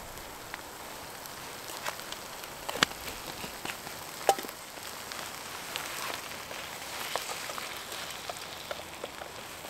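Stew of minced beef and tomato sizzling and spitting in a pan over a Trangia spirit burner: a steady hiss with scattered small crackles. Two sharper clicks stand out, about three and four and a half seconds in.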